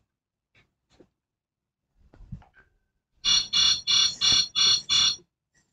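A rapid run of six high-pitched beeps, about three a second, starting about three seconds in.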